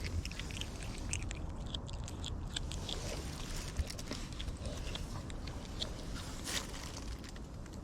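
A cat chewing meat: many quick, irregular wet clicks and crunches of its bites, over a steady low rumble.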